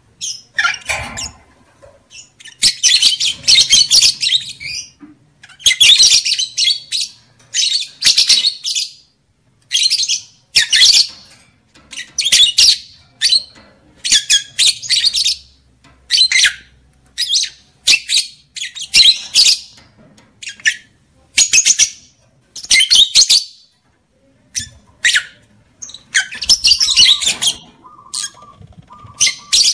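Lovebirds chattering in repeated harsh, high, shrill bursts, each about half a second to a second and a half long with short pauses between. It is the excited chatter used as a lure call to bring lovebirds into breeding condition.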